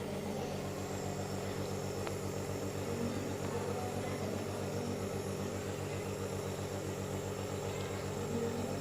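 Small compressor of a medical nebulizer running with a steady hum, delivering a breathing treatment for a cough.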